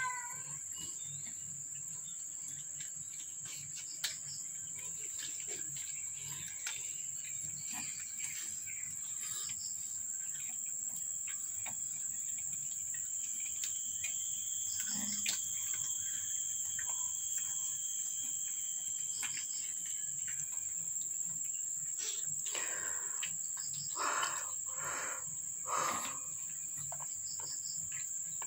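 Insects droning steadily at a high pitch, with a few short louder sounds near the end.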